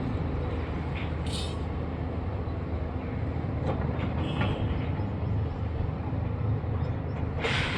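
Heavy diesel engine of construction machinery running steadily at a low, even pitch, with two short hisses, one about a second in and one near the end.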